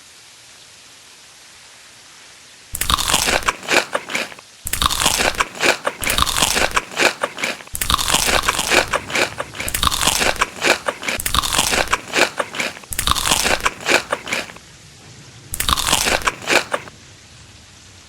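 A person biting and chewing crunchy food close to the microphone, in several loud runs of crunches starting about three seconds in and stopping shortly before the end, over a steady hiss.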